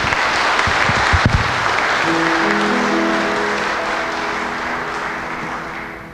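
Congregation applauding, the clapping fading out near the end. From about two seconds in, the band holds soft sustained notes beneath it.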